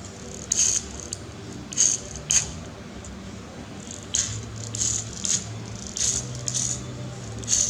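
Small hard toy-car parts clicking and rattling as they are handled and fitted, about eight short clicks spread unevenly over several seconds, over a low steady hum.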